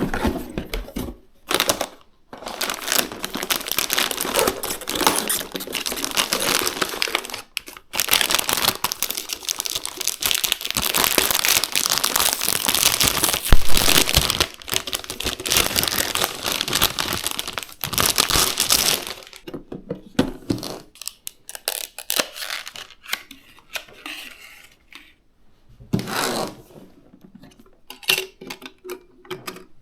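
Packaging being handled and unwrapped: dense crinkling and tearing for most of the first twenty seconds, then sparser rustles and clicks.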